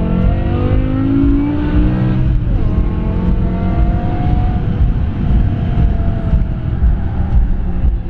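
BMW E60 M5's 5.0-litre V10, fitted with Dinan throttle bodies, airbox and stage 2 ECU, heard from inside the cabin under hard acceleration through the gears of its manual gearbox. The engine note rises in pitch, drops at a gear change about two and a half seconds in, then rises again over steady road rumble.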